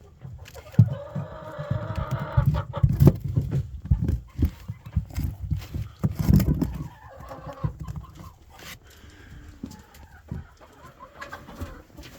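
Chickens clucking in a coop, with repeated knocks and thumps of handling and movement through the wood shavings.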